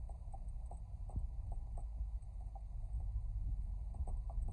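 Second-generation Skoda Octavia heard from inside the cabin while driving slowly over a rough unpaved track. There is a low, steady rumble with scattered irregular knocks and clicks.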